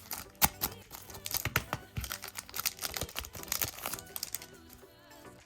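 A trading-card booster pack wrapper being torn open and crinkled by hand: a run of irregular crackles and rustles that thins out near the end.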